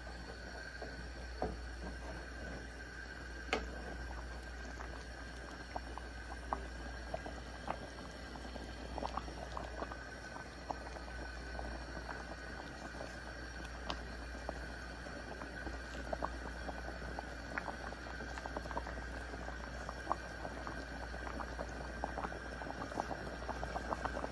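A pan of vegetable broth for fish stew bubbling at a simmer, with scattered small pops of bursting bubbles that come more often near the end.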